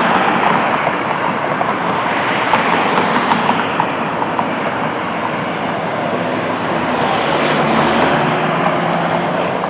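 Steady road traffic noise of vehicles going by, with a vehicle's engine hum coming up about seven seconds in.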